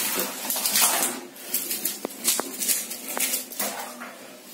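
Freshly caught carp being tipped out of a wet mesh keep net onto a tiled floor: a run of wet slaps and sharp clicks as the fish tumble onto the tiles, with the net rustling.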